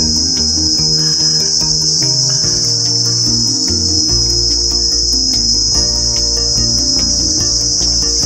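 Loud, steady, high-pitched drone of forest insects. Underneath runs a low melody of held notes that change every second or so.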